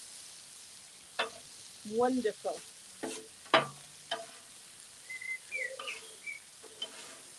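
Peppers and onions sizzling on the hot flat-top griddle of an AGA outdoor gas grill while metal spatulas stir and scrape them across the plate. A few sharp clacks of spatula on the steel, the loudest about three and a half seconds in.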